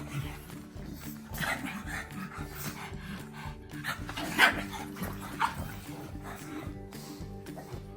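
Pugs giving short play barks and yips, the loudest about four and a half seconds in, over background music.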